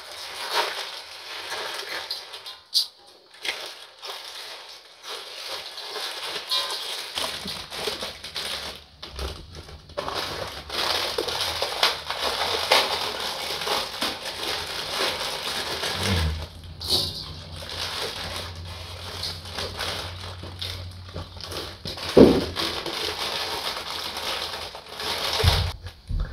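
Plastic instant-noodle packets and seasoning sachets crinkling and tearing as they are opened, with dry noodles crushed and handled over a wok. A low steady hum joins about seven seconds in, and there is one sharp knock near the end.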